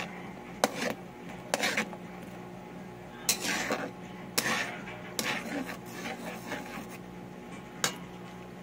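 A spatula presses and scrapes garlic and ginger against a pan of simmering milk, mashing them to draw out their juice. The sharp clinks and scrapes come about a second apart, over a steady low hum.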